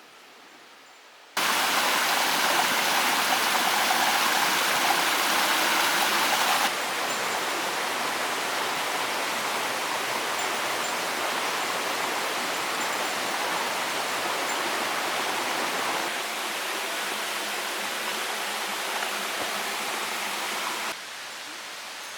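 Steady rushing noise, like running water or wind, that changes level abruptly several times with cuts between shots.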